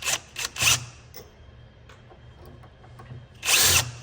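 Cordless drill/driver with a Phillips bit running in short bursts to back out the screws joining a crypto miner's PSU to the hashboard bus bars, three brief runs with the longest near the end. Small clicks of screws and metal parts being handled come between the runs.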